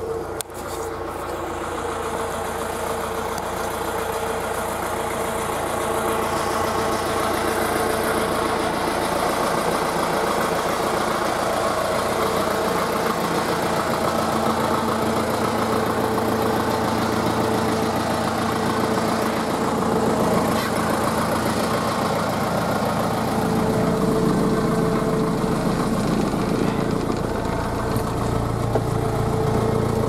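Farm tractor's diesel engine running steadily, getting louder over the first several seconds, then heard from inside the cab.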